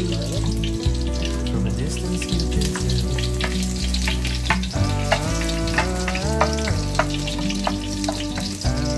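Garlic cloves frying in olive oil in a nonstick pan, sizzling steadily with frequent sharp pops, while a spatula stirs them; scallops are frying in a second pan alongside.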